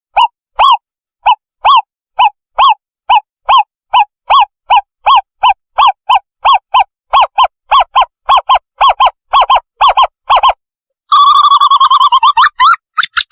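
Recorded owlet call used as a bird-trapping lure: a run of short hooting notes that speeds up steadily, then breaks into a fast bubbling trill near the end.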